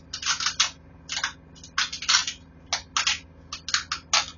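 Duct tape being pulled off the roll in a quick series of short, loud tearing pulls, coming in little clusters, as it is wound tightly around the strands of a braided rope.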